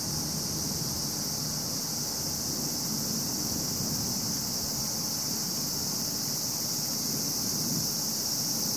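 Steady, high-pitched chorus of insects, unbroken throughout, with a low rumble underneath.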